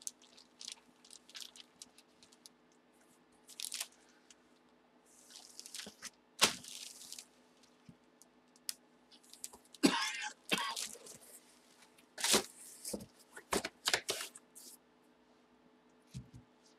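Clear plastic bag around a packaged jersey crinkling and rustling in short, scattered bursts as it is handled, the sharpest crinkle about six and a half seconds in and a busier stretch of handling a few seconds later.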